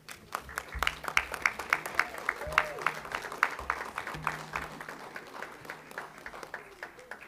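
Audience applauding: many hands clapping in a dense patter that starts just after the beginning and thins out toward the end.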